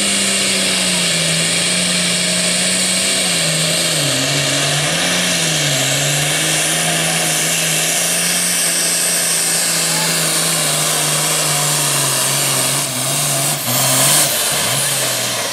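Pro stock pulling tractor's turbocharged diesel engine running flat out under load on a pull, loud and steady, its pitch sagging a little and wavering in the first few seconds. About thirteen seconds in the engine stumbles twice, surges briefly, then its revs fall away.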